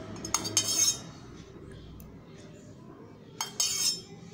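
Spoon clinking and scraping against a container while coconut oil is scooped out, in two short bouts of sharp, ringing clinks: one near the start and one near the end.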